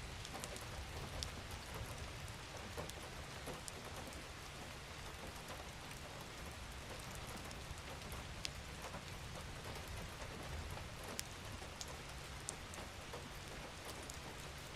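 Steady rainfall: an even hiss of rain with scattered sharp drops striking nearby, over a low steady rumble.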